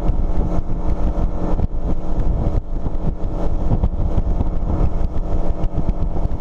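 Outboard engine of a center console boat running steadily at speed, with wind on the microphone and frequent irregular knocks of the hull striking the water. It starts abruptly at full level.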